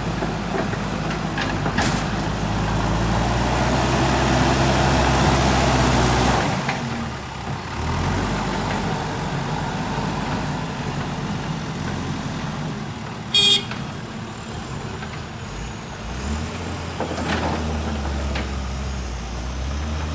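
JCB 3DX backhoe loader's diesel engine running hard under load, easing off about six and a half seconds in, then picking up again near the end. A short horn toot sounds about two thirds of the way through.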